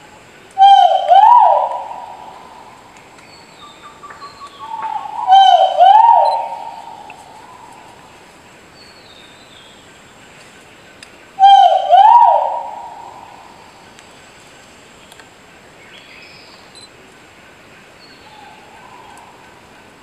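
Crested argus giving its loud two-note hooting call three times, about five to six seconds apart, each call trailing off with an echo.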